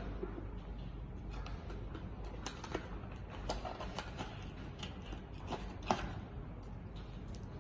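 Hands unboxing a plastic GPS tracker from its cardboard box: a scattering of light clicks and taps of plastic and cardboard, the sharpest about six seconds in, over a steady low hum.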